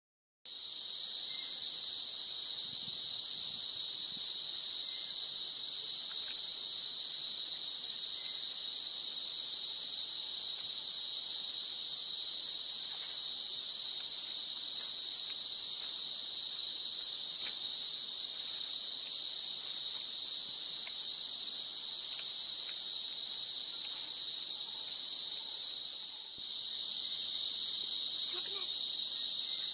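Steady, unbroken high-pitched insect chorus drone from the forest, which cuts in abruptly just after the start and steps slightly louder near the end.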